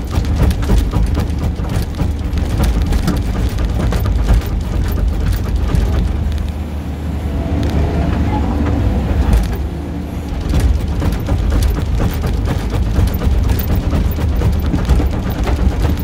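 Kubota SVL95 compact track loader's diesel engine running under load with a steady low drone, over frequent clanks and rattles of the machine working. The clatter eases for a few seconds in the middle.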